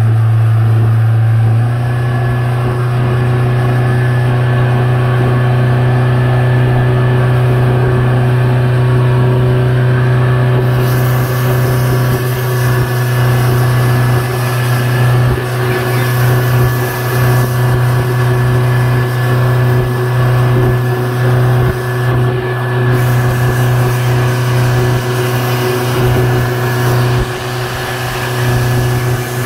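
Towing speedboat's engine running steadily at speed, a constant low drone that steps up slightly in pitch about two seconds in. A rushing hiss of wake and wind joins from about eleven seconds in.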